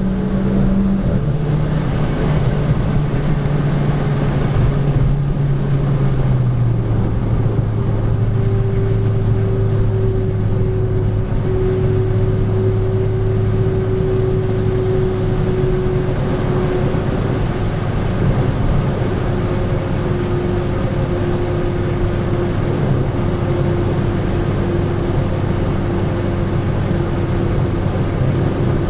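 Renault Clio RS IV's 1.6-litre turbocharged four-cylinder engine running on track under steady load, with tyre and wind noise. Its note drops in two steps in the first seven seconds, then holds steady and slowly falls.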